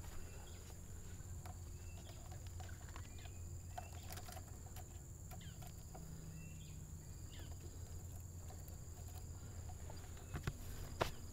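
Outdoor ambience of insects droning in a steady high pitch, with scattered short bird chirps over a low rumble. A few sharp clicks and knocks come near the end.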